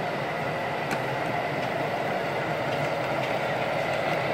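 O scale model train running on the layout: a steady hum and rumble, with a single click about a second in.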